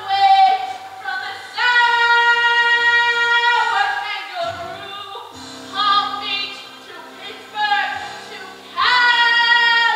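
A woman singing a stage-musical song over instrumental accompaniment, with short phrases and two long held high notes, one about a second and a half in and another near the end.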